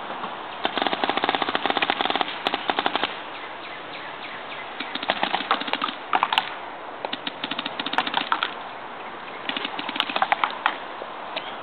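Paintball markers, a Bob Long Rapper and a Dangerous Power G3, firing rapid strings of shots in four bursts of one to two seconds each.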